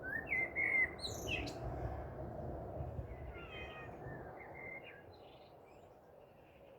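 A string of short, high animal calls and chirps with quick rising and falling glides, thickest in the first few seconds. They sit over a steady low background rumble that slowly fades.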